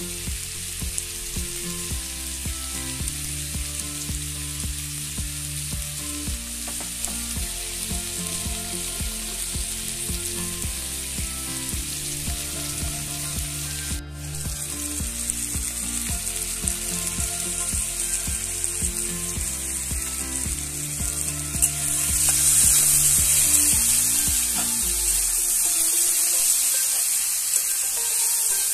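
Diced potatoes with cumin seeds frying in a kadhai with a steady sizzle that grows louder about two-thirds of the way through, as they are stirred with a spatula. Background music with a steady beat plays under it until near the end.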